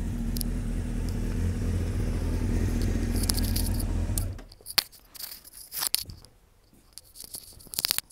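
1995 Honda CBR600F2's inline-four engine idling steadily through an aftermarket Nikko silencer, then switched off a little past four seconds in. After it stops come a few sharp clicks and short metallic rattles.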